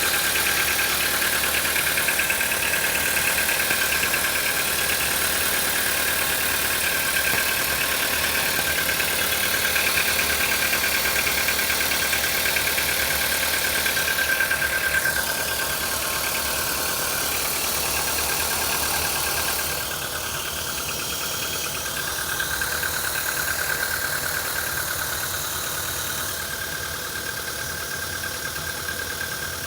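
Volkswagen 1.6-litre CFNA four-cylinder petrol engine idling cold, with a knock running through the idle. A high tone fades out about 15 seconds in and the sound gets a little quieter about 20 seconds in.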